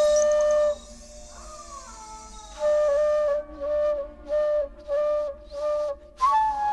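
Music: a slow solo melody, with a held note at the start, then after a pause a long note followed by a string of short notes on the same pitch, and a higher note near the end.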